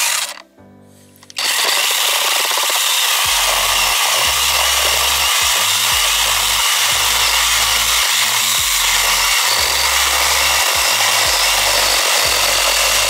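Cordless brushless mini chainsaw with an 8-inch bar running under load, cutting wood: a brief burst right at the start, then about twelve seconds of steady, even-pitched cutting.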